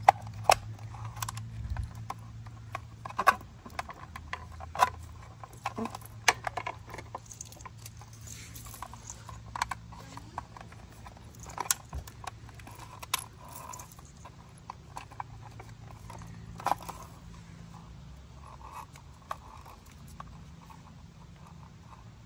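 Irregular clicks, taps and light rattles of e-bike wiring being handled: bullet connectors and cable leads being fitted together under the battery mount, over a faint low steady hum.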